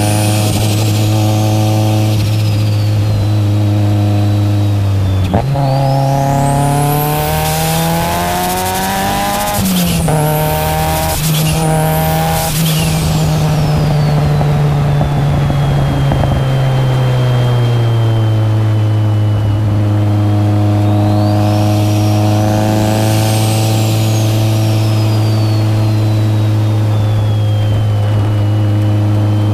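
Cabin sound of a big-turbo Mitsubishi Lancer Evolution VII's turbocharged 4G63 inline-four, cruising steadily at first. About five seconds in the revs jump and it pulls hard twice in quick succession, each pull cut off sharply by a gear change, while a high turbo whistle climbs with each pull. It then settles back to a steady cruise.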